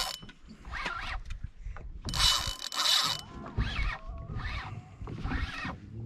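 Spinning reel being cranked against a hooked, fighting fish, in a regular rhythm of turns, with a louder buzzing stretch lasting about a second, about two seconds in.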